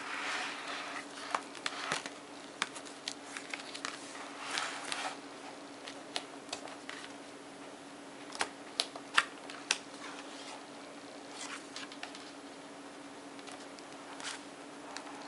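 Stiff card pages of a pop-up book being handled: soft paper rustling as a page is turned and pieces are lifted, with scattered sharp clicks and taps on the card. A faint steady hum runs underneath.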